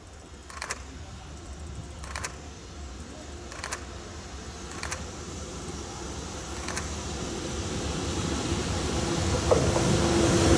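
EH500 electric locomotive hauling a container freight train, approaching and passing close by. A rising rumble with about five sharp clacks from the wheels on the rails in the first seven seconds, growing loud near the end with a steady hum as the locomotive goes by.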